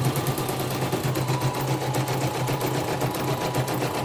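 Elnoss portable embroidery machine stitching at speed, rapid even needle strokes over a steady motor whine. It is running a design after its hook area was cleaned of lint and debris.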